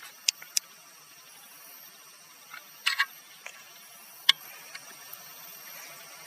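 A handful of short, sharp clicks over a faint steady hiss: three quick ones at the start, a small cluster about three seconds in, and a single louder click a little after four seconds.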